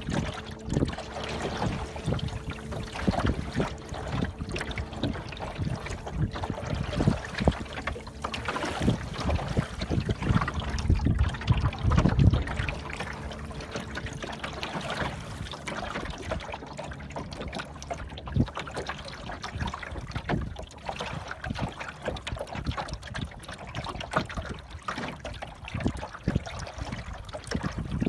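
Water lapping and gurgling against the hull of a small wooden sailboat under way, in irregular splashes, loudest about twelve seconds in.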